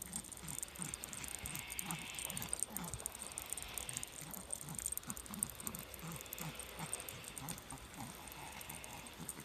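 A small dog panting in quick, even breaths as it walks on a leash, with light pattering of steps on wet pavement.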